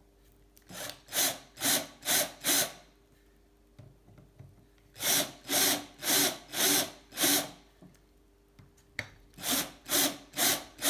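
Hand chamfering of drilled lightening holes in a bicycle seat post: rhythmic metal-scraping strokes in three runs of four or five, about two strokes a second.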